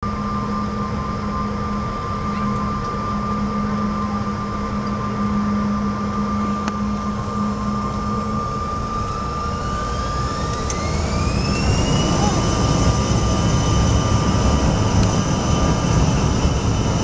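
Bombardier CRJ-900's rear-mounted GE CF34 turbofans heard from inside the cabin, first running at low power with a steady hum and whine. About nine seconds in they spool up for takeoff: a whine climbs in pitch and levels off about three seconds later, and the low rumble grows louder.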